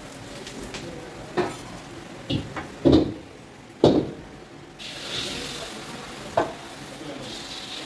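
Food sizzling in a hot pan, with a metal spatula knocking against the pan about six times as it is stirred. The sizzle dies down briefly about three seconds in, then picks up again.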